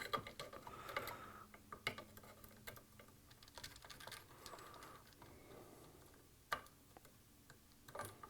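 Faint, scattered clicks and light taps of a screwdriver and small metal parts while wires are fitted and screwed into the terminals of a sewing machine's replacement power switch, the sharpest click about six and a half seconds in.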